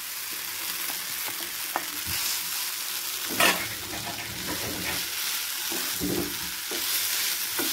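Boiled instant noodles sizzling in hot oil and masala in a non-stick pan while a wooden spatula stirs and tosses them, scraping against the pan. There is a brief louder knock about three and a half seconds in.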